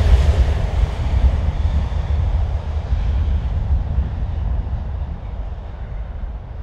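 Railhead treatment train hauled by Class 68 and Class 88 locomotives moving away, its low rumble fading steadily as it recedes.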